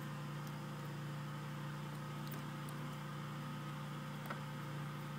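Steady low mechanical hum with a few faint clicks as wire is twisted by hand.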